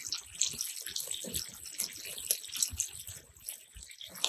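Oil sizzling and spitting in a cast-iron skillet set over a flaring wood fire, with many small crackles and pops.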